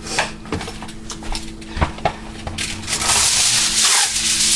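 A few light knocks and clicks, then, about two and a half seconds in, a loud rustling hiss of aluminum foil being pulled off the roll.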